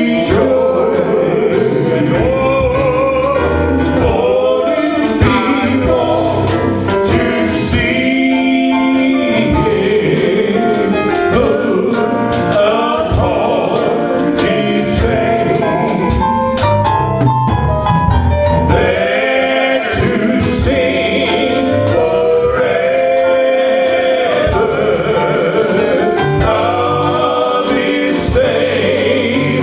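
Gospel music: a choir singing over a steady low bass accompaniment.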